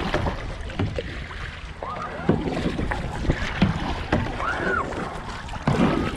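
Kayak paddle strokes: water splashing and dripping off the blade as it swings through the air, over steady wind rumble on the microphone, with a few faint voices.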